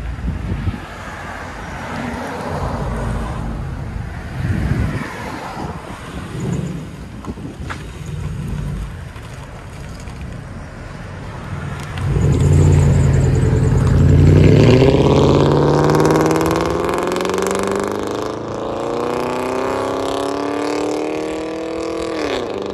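2005 Mercury Grand Marquis 4.6L V8 on straight-piped true dual exhaust, with no mufflers, running at low speed as it pulls off. About twelve seconds in it accelerates hard, and its loud, deep exhaust note climbs steadily in pitch. The note drops suddenly near the end as it shifts up, and grows fainter as the car moves away.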